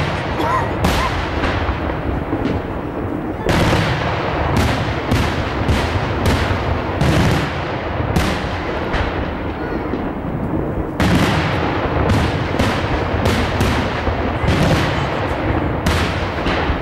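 Daytime fireworks: aerial shells bursting in rapid succession, a dense string of sharp bangs, several a second, over a continuous rumble.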